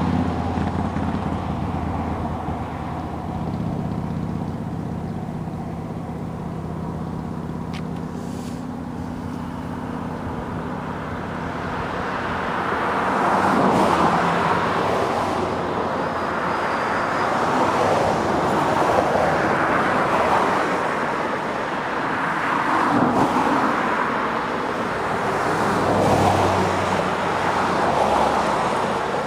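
Road traffic: a low engine hum fades away over the first ten seconds. Then cars pass one after another, their tyre and engine noise swelling and falling every few seconds.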